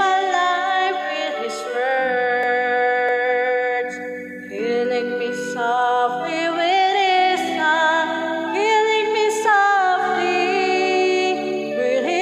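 A woman singing a song over a backing track of sustained chords. She holds long notes with vibrato, recorded through a condenser microphone and sound card.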